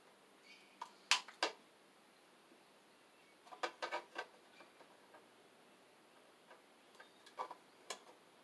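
Hand wire strippers clicking and snipping as they work the end of a sheathed electrical cable: a pair of sharp clicks about a second in, a quick run of them around four seconds, and two more near the end.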